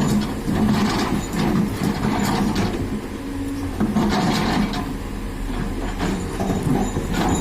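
Doosan DX200A hydraulic excavator's diesel engine running steadily, with irregular scraping and knocking as its bucket works stone-mixed soil.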